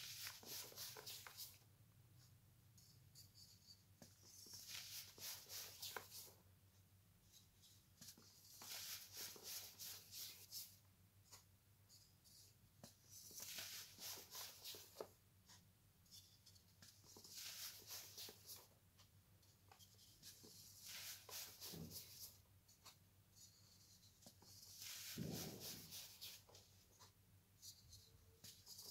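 Pressed blocks of pure baking soda crushed and squeezed between bare fingers: soft, powdery crunching in bursts of a second or two, about every four seconds, with quiet gaps between.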